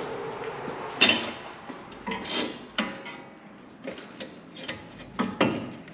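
Metal tools and parts being handled in rear-axle work, giving scattered clanks and knocks, some ringing briefly. The loudest comes about a second in.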